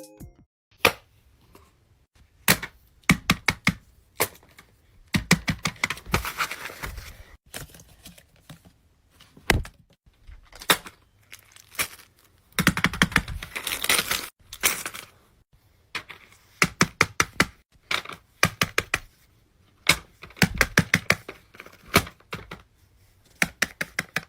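Plastic fidget toys and their packaging being handled: clusters of sharp clicks and snaps, with spells of crinkling and tearing about five and thirteen seconds in.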